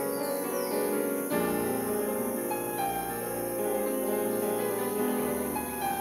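Background piano music: slow, held chords that change every second or two.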